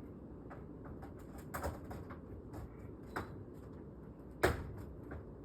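Scattered light clicks and knocks of plastic and metal parts being handled and fitted while a window unit is mounted, with one louder knock near the end, over steady low background noise.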